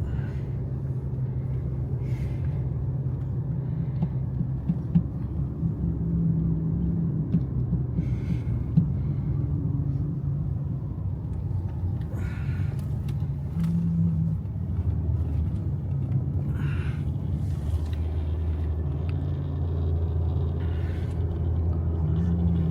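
Steady low rumble and hum of a car driving, engine and road noise, with a few short faint hisses now and then.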